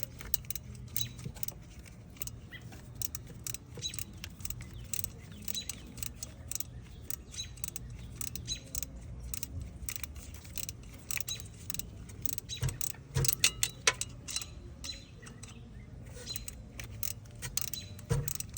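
Hand ratchet and wrench clicking and clinking on bolts in irregular runs of sharp metallic clicks, with a louder cluster about two-thirds through, over a low steady hum.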